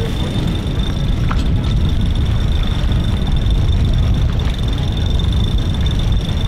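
Wind buffeting the microphone on the open deck of a sailboat under way, a steady low rumble, with a thin steady high-pitched tone over it.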